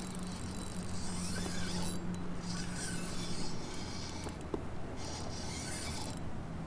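Spinning reel being cranked to retrieve a lure, a rasping whir that comes in stretches of a second or two with short pauses between, over a steady low hum.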